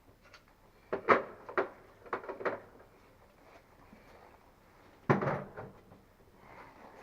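A few sharp clicks and knocks of hard objects being handled and set down, as tools and parts are put aside, with a louder knock about five seconds in.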